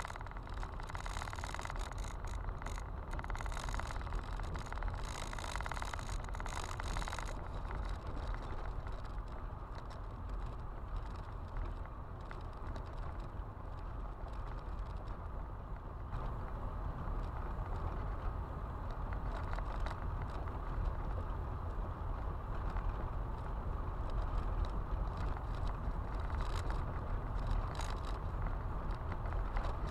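Car driving on an unpaved gravel road, heard from inside the cabin: a steady low rumble of tyres on gravel, with a grittier crunch of stones for about the first seven seconds and again near the end.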